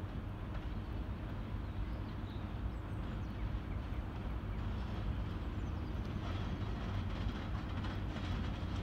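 VL11M electric locomotive hauling a freight train, approaching: a steady low rumble that grows slowly louder, with faint ticking in the second half.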